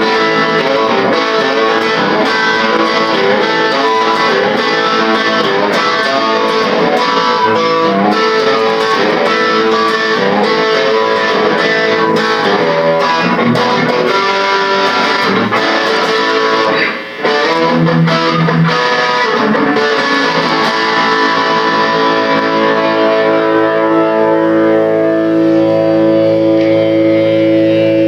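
Guitar music: a run of busy picked notes, then held chords left ringing in the last few seconds.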